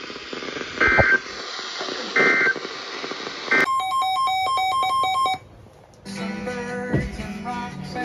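Weather alert radios sounding electronic alert tones for a severe thunderstorm warning. Three short high beeps come first, then a rapid pulsed beeping that alternates between two pitches for about two seconds. After a brief gap, a different, lower alarm tone with several pitches starts.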